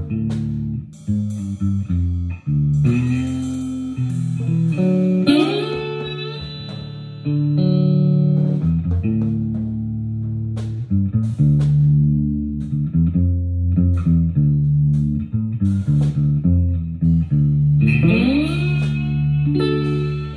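Electric guitar playing a loose jam of held notes, with string bends about five seconds in and again near the end, over drums with cymbal hits.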